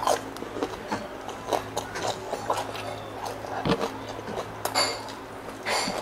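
Close-miked chewing of crispy deep-fried pork knuckle, with irregular crunchy crackles and wet mouth sounds, and a few light clicks from fingers picking at food.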